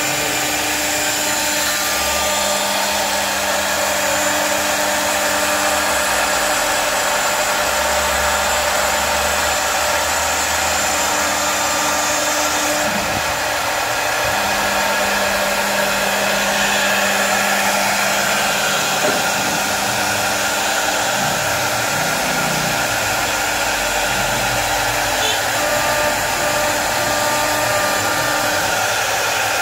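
CNC router spindle running steadily while carving wood: a continuous high whine and hiss, with lower tones that come and go every few seconds.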